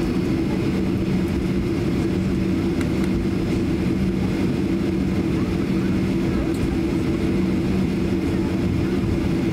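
Boeing 737-800's CFM56-7B engines at taxi power, heard inside the cabin while the airliner taxis: a steady drone with two constant low hums over a rumble.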